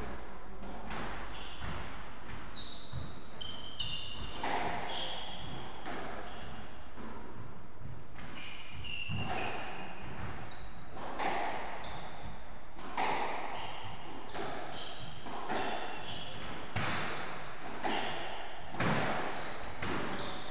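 Squash rally: the ball striking rackets and the walls every second or two, with short, high squeaks from the players' court shoes on the wooden floor between the hits.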